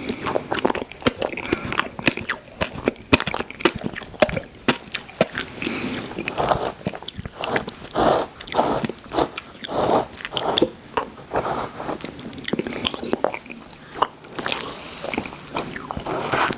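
Close-miked mouth sounds of someone eating ice cream: wet smacking and chewing with many sharp clicks and crunches, in an irregular rhythm.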